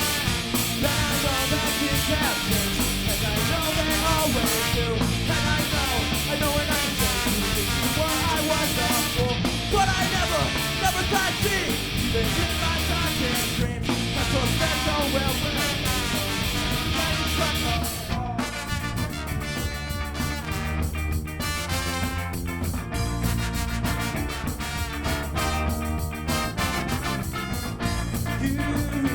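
Live ska band playing a song at full volume, with guitars, drums and cymbals. About two-thirds of the way through, the full sound drops back to a sparser, choppy rhythm.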